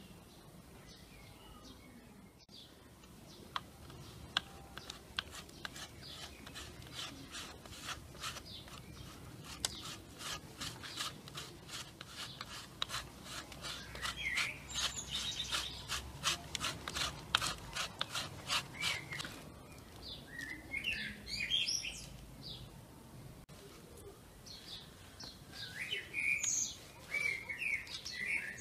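Cheese rubbed down a metal box grater in quick, even strokes, about three a second, for about ten seconds. Birds chirp in the later part.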